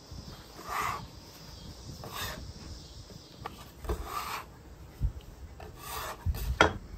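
Metal bench scraper scraping across a wooden butcher-block board as biscuit dough is gathered and folded, in several strokes about a second and a half apart. A few short knocks come between the strokes, the sharpest near the end.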